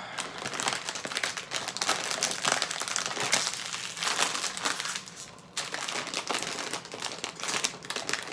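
A crinkly plastic Cheetos bag being squeezed and pulled apart as it is torn open, with a short lull about halfway through.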